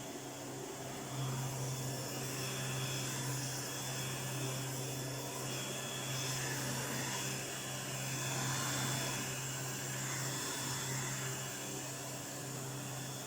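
1988 Electrolux 612 upright vacuum cleaner running steadily: an even motor hum under the rush of air, from its restored motor.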